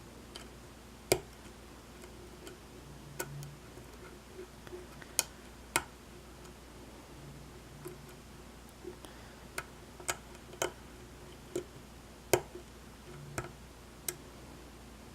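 Lock pick and tension wrench working the pins of a pin-tumbler padlock in single-pin picking: scattered sharp metallic clicks and ticks at irregular intervals, the loudest about a second in, around five to six seconds and near twelve seconds.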